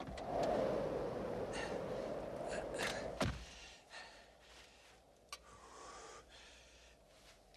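A loud rushing noise for about three seconds that cuts off suddenly with a click. It is followed by a man's quieter gasps and breathy chuckling inside a truck cab.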